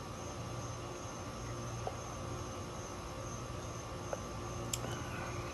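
Steady low hum under an even hiss of background noise, with a few faint clicks.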